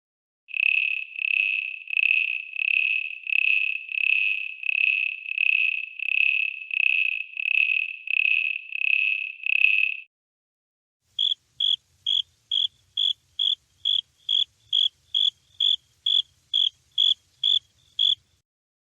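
Insect chirping in two runs. First comes a series of long, evenly spaced chirps of one steady pitch. After a short pause follows a faster series of short, slightly higher chirps, about three a second.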